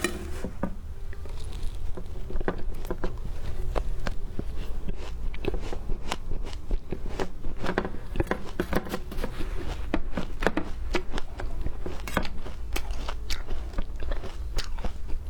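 Ice being bitten and chewed close to the microphone: irregular crisp crunches and cracks, often several a second, over a steady low rumble.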